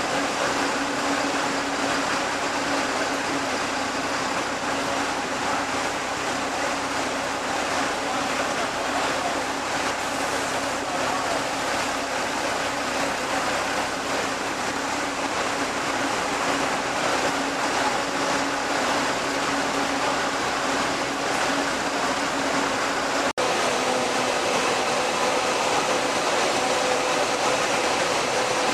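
Steady din of an enclosed bus terminus: idling bus engines and ventilation mixed with a low steady hum, broken once by a momentary dropout about 23 seconds in.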